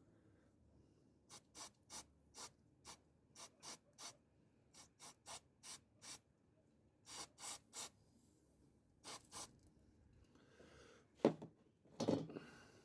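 A series of short rubbing or scraping strokes in quick runs of two to three a second, then a single louder knock and a scuffle near the end.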